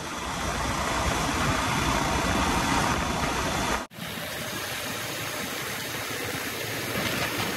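Motorcycle on the move: a steady rush of wind and road noise with the engine running underneath. The sound drops out for an instant a little past halfway and comes back slightly quieter.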